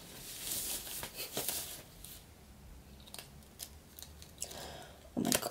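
Fabric rustling as a top is rolled up, then the foil sachet of an estrogen skin patch being handled and torn open: light crinkling with a few small clicks, and a louder rustle just before the end.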